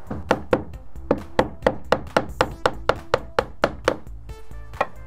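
Slater's hammer punching a nail hole through a roofing slate with its pick: about fifteen quick, sharp strikes at roughly four a second, then one more strike near the end, with background music underneath.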